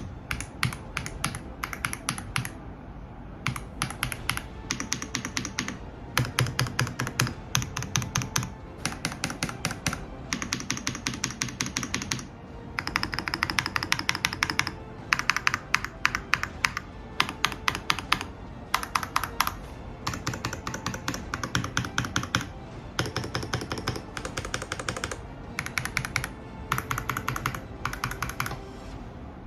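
Typing on a XINMENG X98 Pro gasket-mount mechanical keyboard: quick runs of rapid key clacks, broken by short pauses.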